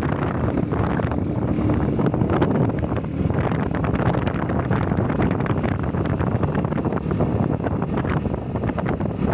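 Wind buffeting the microphone of a phone on a moving motorcycle, a steady rushing noise with the motorcycle's engine running underneath.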